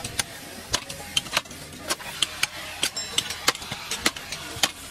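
Hammer blows on a scrap electric motor's metal housing, knocking the end cover loose. It is a quick, irregular run of sharp metallic knocks, several a second, and some ring briefly.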